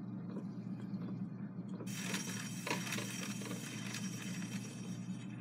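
A Victor Victrola VV-IX's toggle-action manual brake pressed by its handle against the spinning turntable rim: a rough rubbing noise with small clicks sets in about two seconds in as the brake slows the turntable, over a steady low hum.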